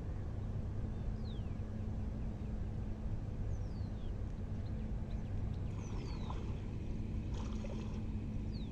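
Steady low motor hum, with short high whistles falling in pitch four times over it.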